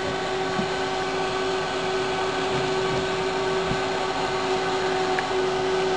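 Small electric fan motor running steadily: a constant hum over a soft rush of air.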